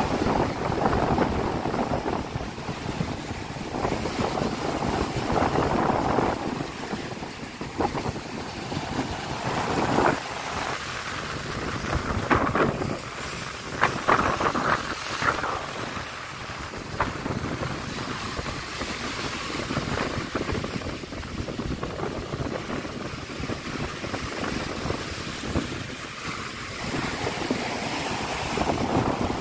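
Stormy Black Sea surf: waves breaking and washing up a pebble beach in a continuous roar that swells with each wave, the loudest crashes about halfway through. Wind buffets the microphone.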